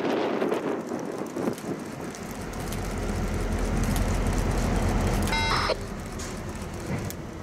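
EMD GP38 diesel-electric locomotive's 16-cylinder two-stroke engine running as it creeps forward, a steady low rumble that swells in about two seconds in. Wind buffets the microphone at the start, and a short high-pitched tone sounds briefly a little past the middle.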